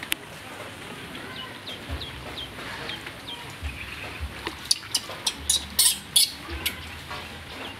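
Water splashing and sloshing in a steel bowl as a baby macaque is washed by hand, with a cluster of loud splashes from about five to seven seconds in. Short, high, falling chirps repeat a few times a second in the first few seconds.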